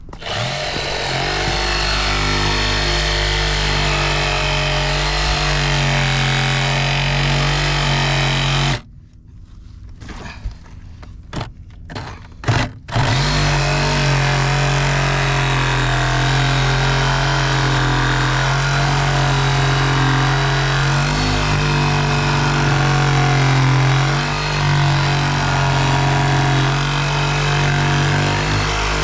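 Engine of a Bobcat excavating machine running steadily under load while trenching. It drops out abruptly for about four seconds about nine seconds in, with a few short knocks in the gap, then runs on.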